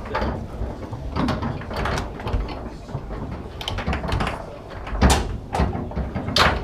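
Foosball clatter: irregular sharp knocks and clacks of rods, plastic men and ball against the table, the loudest two about five seconds in and just before the end.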